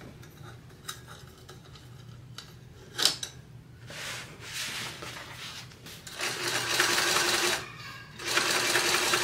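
Sewing machine topstitching a seam through vinyl bag panels. It starts with a click, then runs in three short bursts of stitching, the last two louder and each about a second and a half to two seconds long, with brief stops between.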